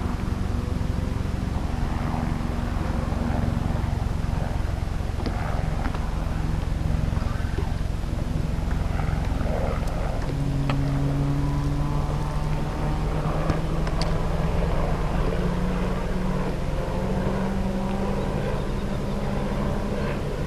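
A boat motor running steadily, its hum stepping up in pitch about ten seconds in, over a low wind rumble, with a few light clicks.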